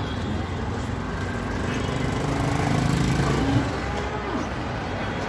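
Street noise with an engine running nearby, a steady low hum that grows a little louder around the middle, and faint voices in the background.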